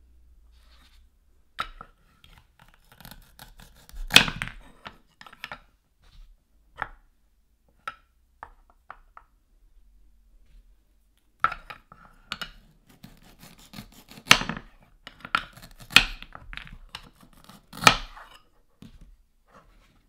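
Wooden toy fruit and vegetables handled on a wooden cutting board: light wooden clicks and knocks, and short velcro rips as pieces are cut and pulled apart. The loudest rips come about four seconds in and three times near the end.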